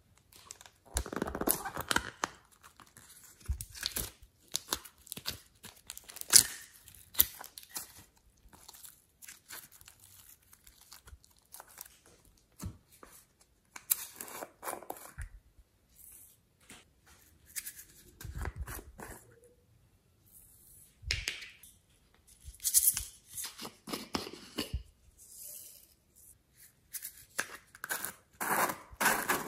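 Hands tearing and squeezing soft modelling clay and handling small plastic clay cases: irregular bouts of crackly tearing, with a few sharp clicks.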